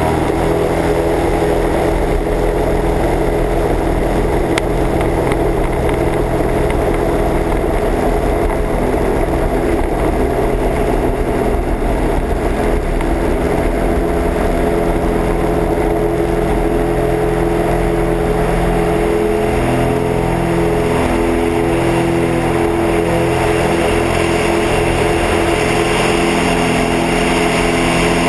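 Cessna 182's piston engine and propeller running steadily at takeoff power through the ground roll on a grass strip and into the climb-out.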